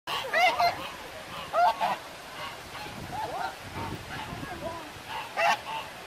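Grey domestic goose honking in short bouts of nasal calls, a second or two apart.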